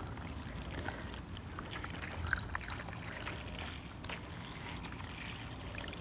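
Water pouring steadily in a trickle from a plastic watering can into a shallow birdbath dish.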